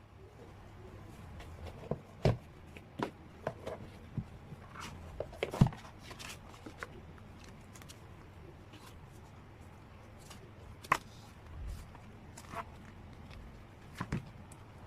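Scattered clicks, taps and light rustles of album packaging and photocards being handled, with the sharpest knocks about two seconds, five and a half seconds and eleven seconds in.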